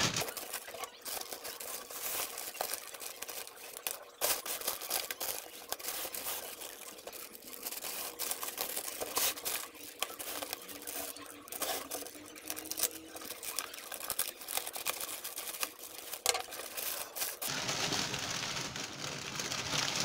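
A plastic courier mailer bag crinkling and crackling as it is handled and torn open, with a box sliding out of it near the end. A steady hiss joins in for the last few seconds.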